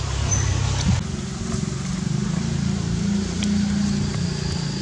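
A motor vehicle's engine running steadily nearby, a low wavering hum.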